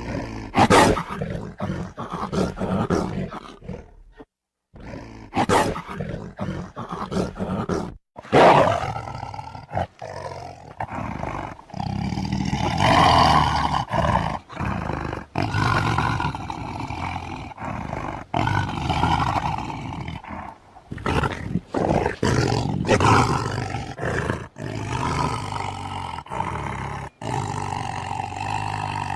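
Deep, beast-like roaring and growling, a series of loud roars with short breaks between them.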